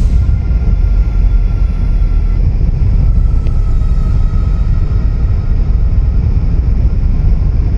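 Riding noise from a Suzuki Hayabusa motorcycle under way: a steady, heavy low rumble of wind and engine at the camera's microphone, with faint steady tones above it.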